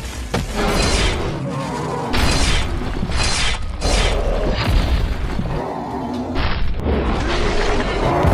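A rapid string of booms and impacts, with music, each sound starting and stopping abruptly.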